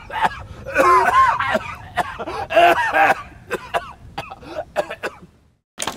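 A thirty-year-old man in a dramatic sick coughing fit, struggling to catch his breath. Two loud spells of strained, hacking coughs come about a second in and again near the three-second mark, then smaller coughs taper off.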